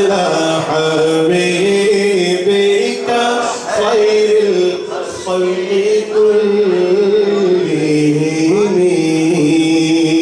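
A man singing a naat, a devotional poem in praise of the Prophet Muhammad, into a microphone in long held notes that waver and step in pitch.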